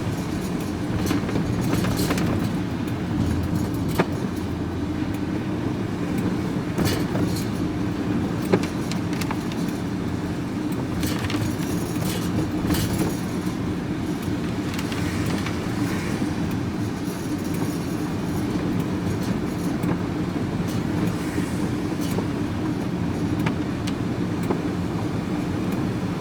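Steady engine and road drone inside a moving van's cab, with scattered clicks and rattles from the load of scrap metal in the back.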